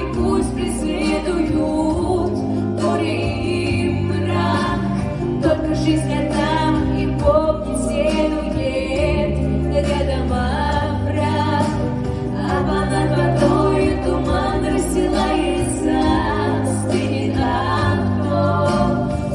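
Two girls singing a duet, a pop song in Russian, over instrumental accompaniment with a steady bass line.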